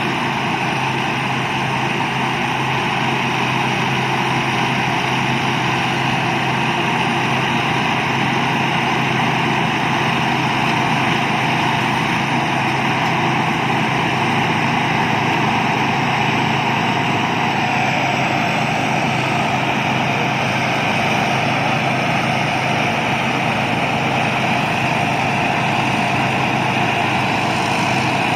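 Thai Seng Yont rice combine harvester running steadily as it works. Its tone shifts slightly about two-thirds of the way through.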